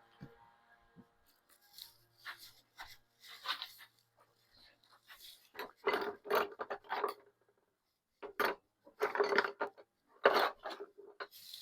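Irregular scraping and rubbing with a few clicks: tools and parts being handled, in bursts that are loudest around the middle and near the end.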